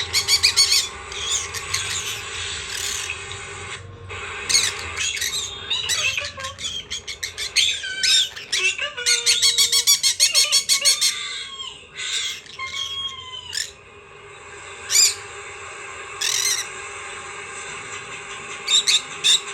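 Pet birds calling and chattering: rapid trains of sharp notes and squawks, with a few short sliding calls near the middle.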